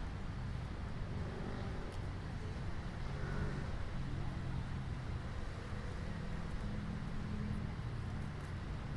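Steady low rumble of distant road traffic, with a faint engine hum that drifts in pitch.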